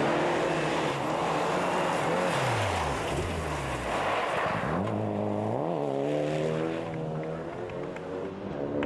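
Rally cars at full throttle on a gravel stage, engines revving up and dropping back through gear changes. A loud rush of gravel and tyre noise dominates the first half, then the engine note climbs in steps.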